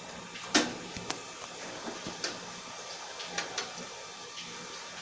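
A screwdriver and small metal parts clicking against a steel desktop computer case as screws and cards are worked on. There is one sharp click about half a second in, then a few lighter clicks.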